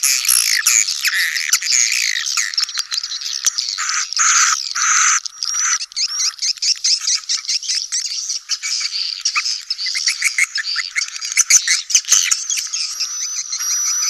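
A colony of edible-nest swiftlets chattering and twittering, with many overlapping chirps and trills. It is a swiftlet-farming lure recording of the kind played to draw young birds into a new swiftlet house. Near the end, short high whistles repeat a little under twice a second.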